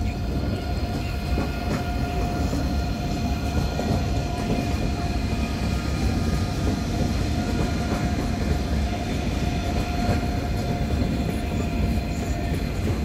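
ICE 3 high-speed electric train rolling slowly past at close range: a steady rumble of wheels on rails with a thin, steady whine over it that stops shortly before the end.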